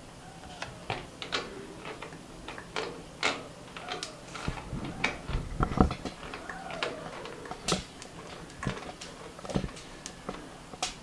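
Irregular clicks and knocks of plastic fittings and tubing being handled and screwed together while the water connector and its nut are fitted on a reverse-osmosis water purifier, with a cluster of heavier knocks in the middle.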